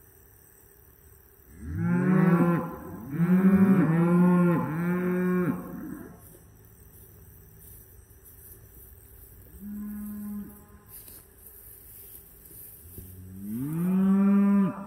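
Cattle mooing: four loud moos in quick succession about two seconds in, a short fainter moo near the middle, and one long moo near the end.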